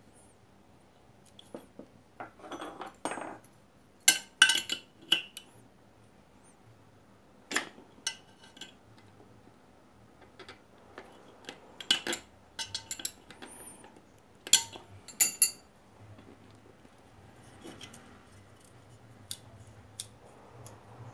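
Small metal parts and hand tools clinking and knocking together: scattered sharp clinks with short pauses between them, loudest in clusters about four, twelve and fifteen seconds in.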